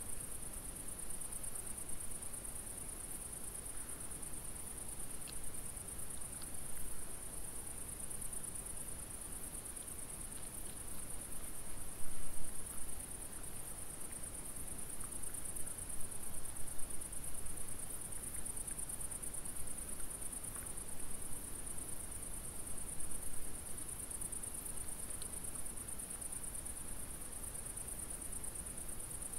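Crickets chirring steadily, a continuous high-pitched trill, with a few faint ticks and a brief louder noise near the middle.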